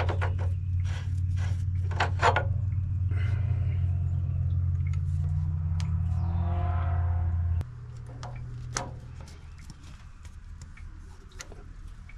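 Hot engine oil draining from a diesel generator's drain hose into a plastic bucket, with sharp clicks as the hose and its fitting are handled. Underneath runs a steady low hum that drops away abruptly about two-thirds of the way in.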